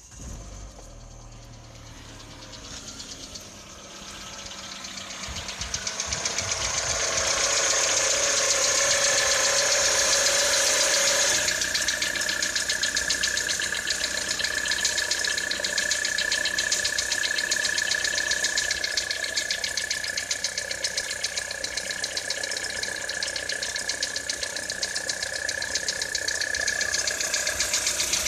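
2013 Citroën C4 engine running in freezing cold just after starting, with a fast, even knocking through it. It gets louder about six seconds in, then stays steady. This is the engine knock that shows up in frost.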